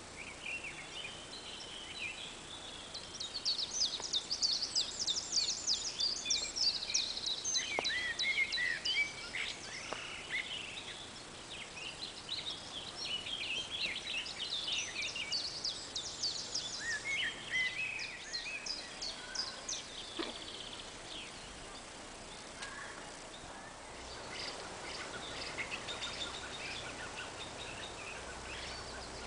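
Songbirds singing: repeated bursts of rapid, high-pitched chirps and trills, busiest in the first third and again around the middle, over a faint steady outdoor hiss.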